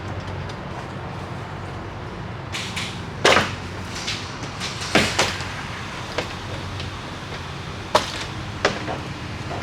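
Irregular sharp plastic clicks and knocks, about five of them, as a pickup truck's interior door panel and its fittings are pried and worked loose, over a steady low hum.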